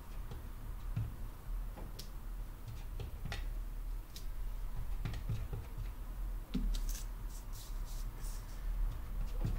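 Wood-mounted rubber stamp being tapped on a small ink pad and pressed onto paper: light scattered taps and clicks with paper rustle, a quick run of taps about seven seconds in, over a steady low hum.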